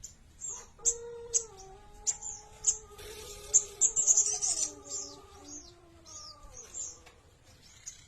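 A cici bird (cisticola) giving a run of short, high chirps and quick sweeping notes, busiest about halfway through, as it practises its song. Underneath, from about a second in until near the end, runs a lower, drawn-out wavering tone.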